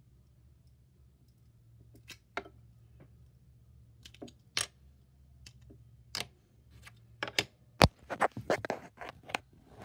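Scattered clicks and knocks of small hard objects being handled, becoming a quick run of clacks and rattles in the last two seconds, with one sharp knock the loudest.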